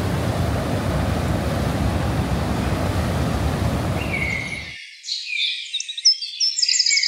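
Rushing water at the brink of Niagara's American Falls, a steady roar that fades out about four and a half seconds in. Then high bird chirps and quick trills follow to the end.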